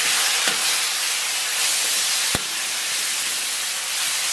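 Sliced pork sizzling in hot oil in a wok, a steady frying hiss, as a metal spatula stirs it, knocking against the wok a couple of times.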